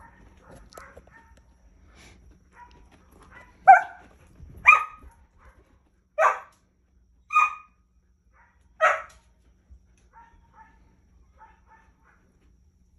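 A dog barking: five loud barks spaced a second or so apart starting about four seconds in, with fainter barks before and after.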